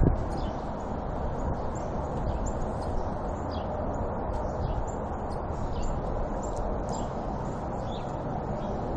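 Steady, unpitched low roar with no break, the unexplained 'roaring noise' heard from outdoors, with small birds chirping briefly over it many times.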